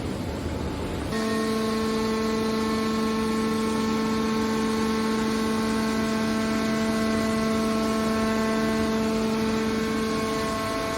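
Scrap metal baler's hydraulic pump unit running with a steady hum, starting up about a second in and holding one even pitch.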